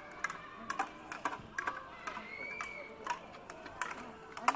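Faint murmur of onlookers' voices with scattered sharp clicks, several a second, and a brief high tone about halfway through.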